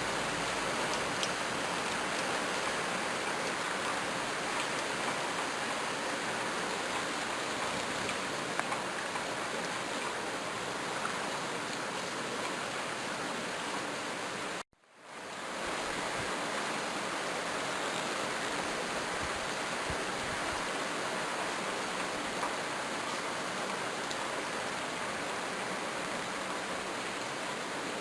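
Rain falling steadily as an even hiss, with a few faint drip ticks. About halfway through it cuts out to silence for a moment and fades back in.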